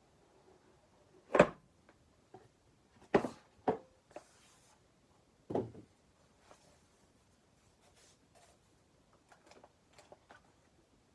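A keyboard box and its packaging being handled and opened: a few sharp knocks and clatters, the loudest about a second and a half in, then lighter taps and a brief rustle.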